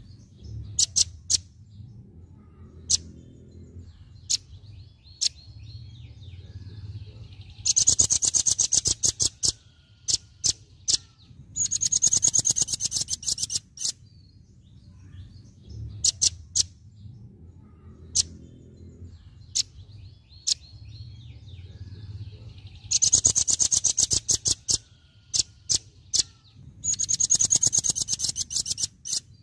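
Velvet-fronted nuthatch singing its rapid-fire 'tembakan' song: four fast, high trills of sharp notes, each lasting a second or two, with single sharp chips between them. A faint low hum runs underneath.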